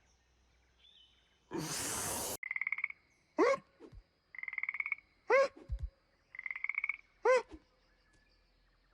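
Cartoon frog croaking: a rattling croak three times over, each followed by a short squeaky call that bends up and then down. A short burst of hiss comes before the first croak.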